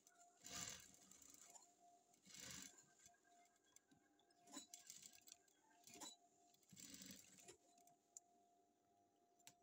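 Near silence, with faint rustles of fabric being slid and turned on a sewing machine bed, three times, and a few light clicks.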